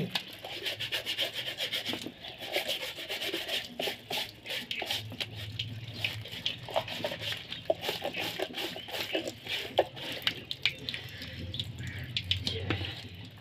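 A stiff hand brush scrubbing a wet sandal with quick, continuous back-and-forth strokes.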